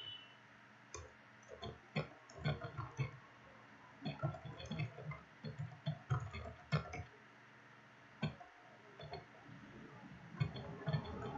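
Computer keyboard typing: irregular runs of key clicks with short pauses between words. A brief pitched sound comes in near the end.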